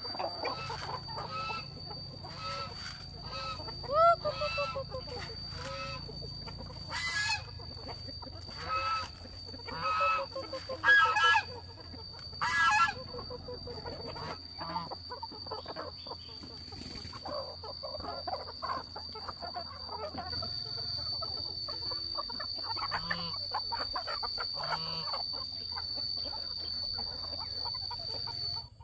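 A flock of chickens clucking and squawking, with several louder calls in the first half and a busier, softer clucking later. A steady high-pitched whine runs underneath throughout.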